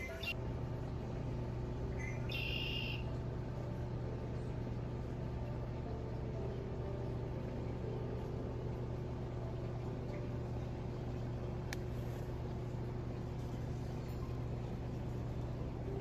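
Outdoor garden ambience: a steady low hum, with a short bird chirp about two and a half seconds in and a faint click near the end.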